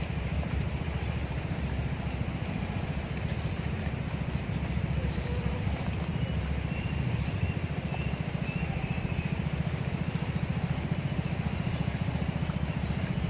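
A small engine running steadily, with a low, even pulse.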